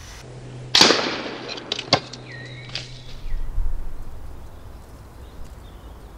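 A single shot from a PCP air rifle, the FX Impact Mk2: a sharp crack with a short fading tail, followed about a second later by a couple of sharp knocks.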